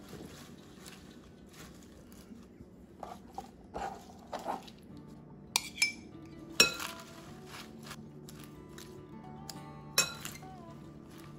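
Metal utensils clinking against a glass mixing bowl while romaine lettuce is mixed with a creamy dressing: a few sharp clinks about six seconds in and one more about ten seconds in. Soft background music runs underneath.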